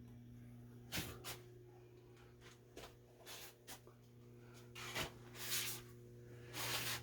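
Faint steady low hum, with scattered knocks and rustling from a phone camera being handled while it is carried around a small room.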